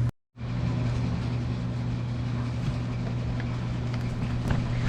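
A steady low mechanical hum with a few faint light clicks near the end. The sound drops out completely for a moment just after the start.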